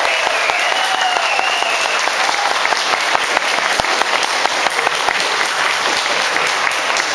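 A crowd applauding, with dense, sustained clapping throughout and a voice calling out over it in the first couple of seconds.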